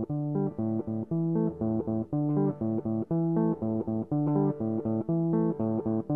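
Instrumental background music: plucked guitar over a bass guitar, playing a repeating riff of short, evenly spaced notes.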